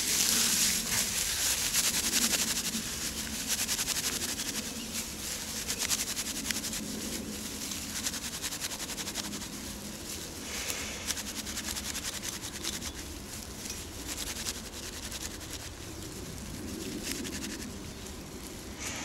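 Dry grass crackling and rustling as it is twisted and crumpled between the hands into a tinder bundle, loudest in the first couple of seconds.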